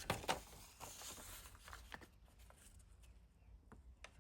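Faint rustling of a paper instruction manual being handled, with a few soft clicks and taps; it grows quieter after about two seconds.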